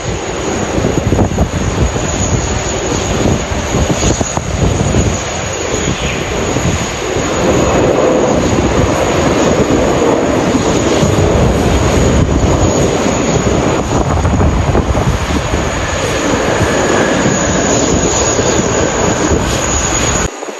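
Jet engines of an arriving United Airlines Boeing 777-300ER, its GE90-115B engines running as it passes, with strong wind buffeting the microphone. The engine noise swells in the middle and cuts off abruptly just before the end.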